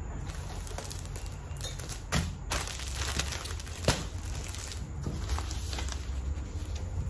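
Plastic packaging crinkling and rustling as it is handled, irregular throughout, with two sharper knocks about two and four seconds in.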